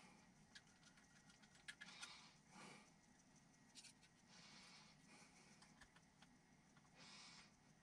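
Near silence with faint handling sounds: scattered small clicks and a few soft rustles as a hex driver and small screws are handled and picked from a metal parts tin.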